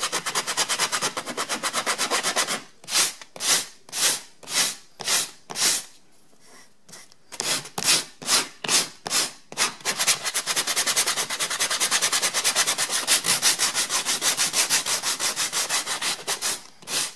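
80-grit sandpaper on a hand sanding block rubbed back and forth over a scarf joint in pine crown molding, taking down a slightly high edge. Quick strokes at first, then slower separate strokes about two a second with a short pause near the middle, then fast steady strokes again that stop just before the end.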